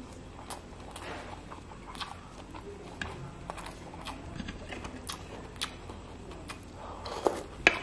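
Close-up eating sounds of a person chewing snakehead fish curry and rice: wet lip smacks and irregular mouth clicks. A louder slurp from a spoonful of curry broth comes near the end.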